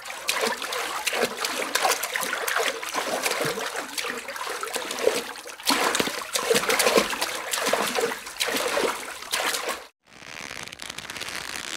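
Water splashing and trickling in a dense run of small splashes. It dips briefly about halfway, cuts off sharply near the end, and is followed by a quieter stretch.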